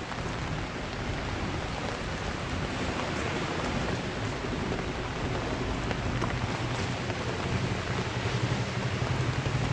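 Steady rain falling, an even hiss. A low hum joins in partway through and grows louder toward the end.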